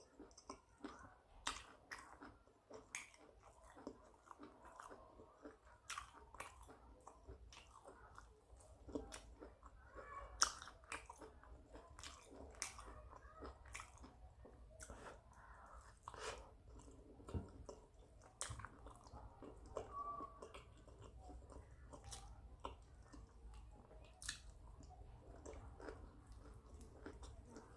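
A person chewing and biting food, with irregular sharp mouth clicks and smacks, a few each second.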